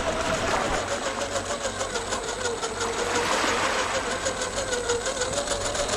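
RC rock crawler's electric motor and gear drivetrain whining with a fast, even gear chatter. The whine drops in pitch through the middle, as if the motor is slowing under load, then rises again near the end.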